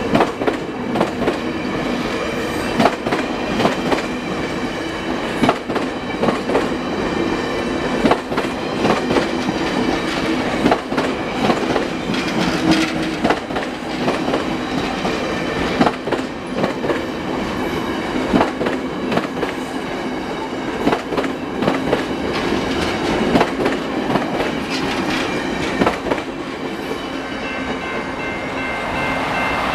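VIA Rail stainless-steel passenger cars rolling past over a constant rumble, the wheels clacking over rail joints in pairs every second or two. The clacking stops near the end as the last car goes by.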